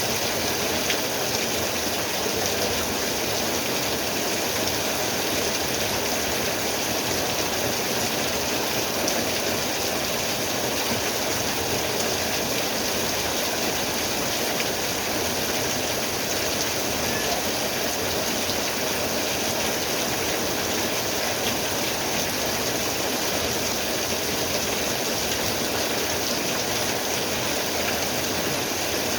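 Steady rain falling, an even unbroken hiss of water.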